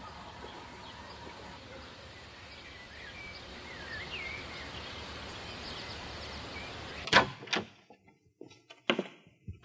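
Steady outdoor background noise with a few faint bird chirps. About seven seconds in it gives way to a quieter room and a loud sharp thump, like a door, followed by a few fainter knocks and clunks.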